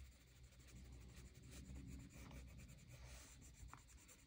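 Faint scratching of a brown Brutfuner colored pencil shading on sketchbook paper in many light, repeated strokes.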